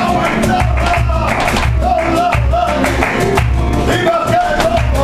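Live flamenco: a singer's wavering, ornamented line over flamenco guitars, with sharp hand claps (palmas) and a steady low beat.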